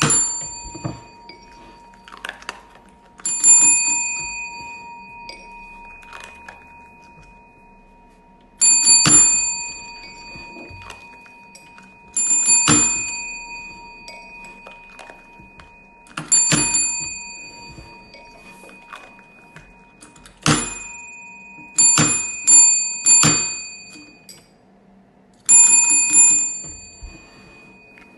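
A chrome service bell (desk call bell) struck again and again, about ten rings, each ringing out and dying away over a few seconds, the rings coming closer together near the end. Lighter clicks and knocks sound between the rings.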